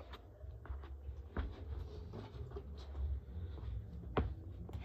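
Handling noise: a low rumble from the camera being held and moved about close up, with a few faint clicks.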